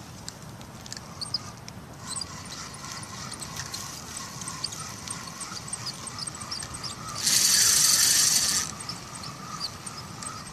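A fishing reel cranked in one burst of about a second and a half near the end, a loud high whirr as line is wound in after a cast. Faint high chirping ticks repeat throughout.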